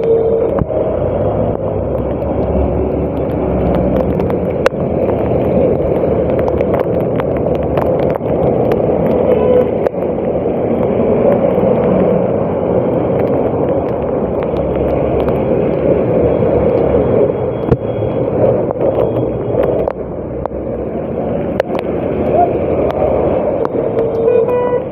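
A vehicle in motion: a loud, steady rumble of running and road noise, scattered with small clicks and knocks. A few short tones come in near the end.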